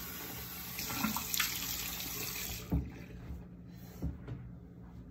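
Bathroom sink tap running, with a few splashes of face rinsing, then shut off a little over halfway through. A thump and two softer knocks follow.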